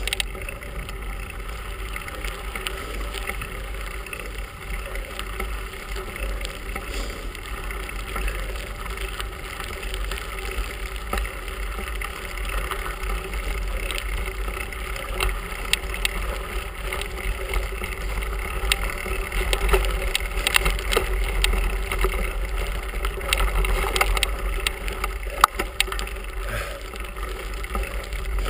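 Bicycle rolling over a gravel carriage road: a steady rumble of tyres and wind on the handlebar-mounted microphone, with scattered clicks and rattles from the bike over the stones.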